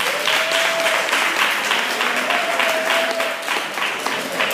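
Audience applauding: many hands clapping fast and steadily.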